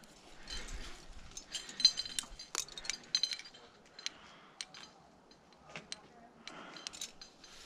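Metal climbing gear clinking and jangling: carabiners and cams on a harness rack knock together as a cam is placed in a crack and the rope is clipped. There are many sharp clicks with short metallic rings, busiest in the first half.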